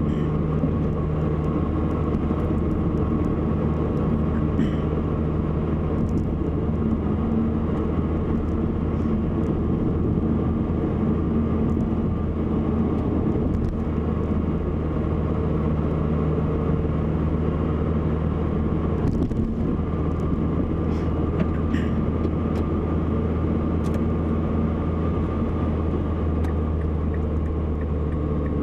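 Steady engine and road noise heard from inside the cabin of a 2007 Mazdaspeed3 (Mazda3 with a 2.3-litre turbo four) being driven, with a few faint knocks scattered through it. These are the kind of front-end rattle that is traced to hardened, worn front sway bar bushings.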